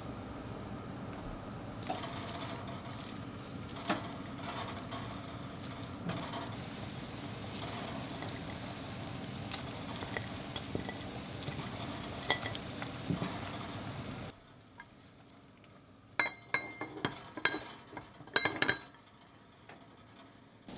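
Soup simmering in a pot on a gas burner, a steady bubbling hiss with occasional small knocks. It cuts off about two-thirds of the way through, and then comes a quick cluster of sharp clinks of cookware.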